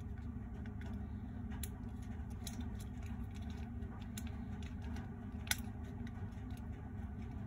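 Light scattered clicks and ticks from small plastic toy parts and packaging being handled, with one sharper click about five and a half seconds in, over a steady low hum.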